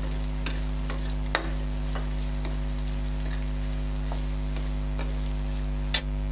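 Sliced onions and green chillies sizzling in hot oil in a kadhai, stirred with a flat metal spatula that clicks and scrapes against the pan several times, over a steady low hum.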